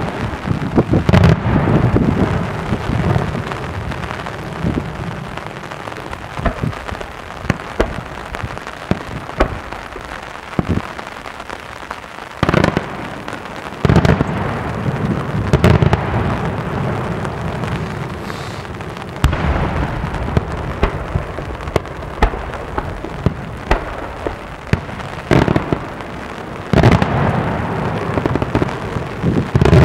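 Daytime aerial fireworks bursting overhead. A dense, continuous crackle of many small reports is broken by several heavy booms: about a second in, twice around 12 to 14 seconds in, again near 16 seconds, and twice near the end.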